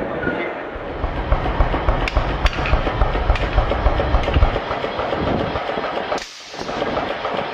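Forge workshop machinery making a fast, rhythmic mechanical clatter of heavy low thumps, with a few sharp metal strikes, easing off about four and a half seconds in to a steadier machine noise.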